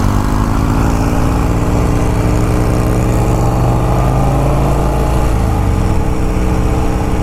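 A 1951 Vincent Rapide's V-twin engine running while the motorcycle is ridden on the road. The engine pitch climbs a little a few seconds in, then eases back.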